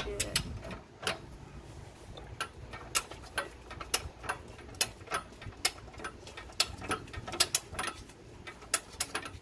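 Ratcheting torque wrench clicking in short, irregular strokes as the lower control arm nut is tightened toward 127 foot-pounds.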